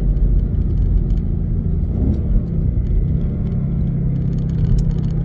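Ford Mustang GT V8 running through an H-pipe with the stock back boxes, a steady low muscle-car rumble while driving, with a brief rise in pitch about two seconds in as the engine picks up revs.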